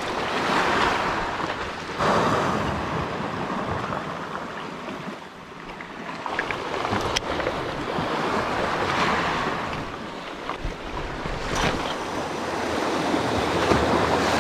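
Sea surf washing onto a rocky shore, swelling and ebbing every few seconds.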